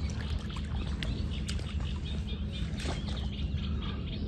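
Water sloshing and splashing as a large grass carp is lowered back into shallow water by hand, over a steady low rumble. Small birds chirp repeatedly in the background from about halfway through.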